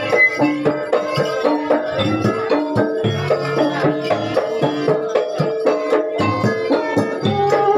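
Kuda lumping accompaniment: Javanese traditional music of drums and gongs playing a fast, steady beat. A held, wavering tone comes in near the end.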